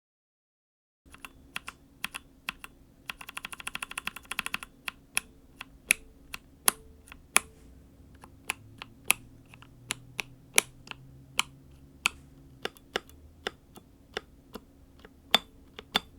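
Keystrokes on a mechanical keyboard with stock Pixel (Daifen) long-pole linear switches. A quick run of clicks with a ringing tone comes about three seconds in, followed by separate presses about one or two a second. In stock form the switches are really scratchy, with some spring ping and crunch.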